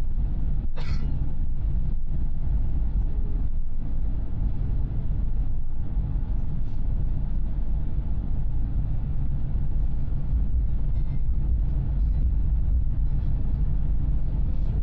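Steady low rumble of engine and road noise inside a moving minibus. A brief sharp noise comes about a second in.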